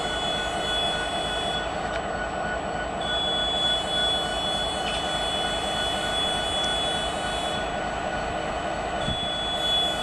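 Diesel-electric freight locomotive running with the engine idling: a steady, dense rumble with a thin, steady high-pitched whine over it that drops out twice for a second or so.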